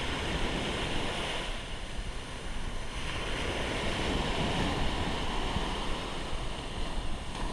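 Small sea waves breaking and washing up a sandy shore in a steady rush, with wind buffeting the microphone.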